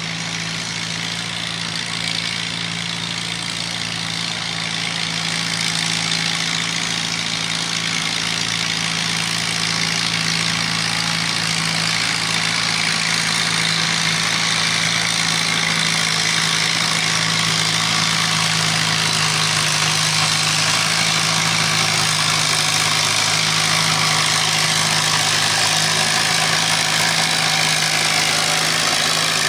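Farmall M tractor's four-cylinder engine running hard under load as it pulls a weight-transfer sled, steady in pitch, growing louder over the first several seconds and then holding.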